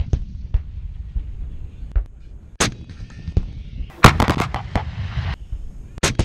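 A battery of towed howitzers firing in turn: a series of sharp reports over a low rumble, the loudest about four seconds in, followed by a quick run of further shots.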